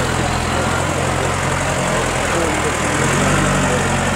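Toyota Land Cruiser 75's diesel engine running at low revs. About three seconds in, its revs and loudness rise as the truck moves off.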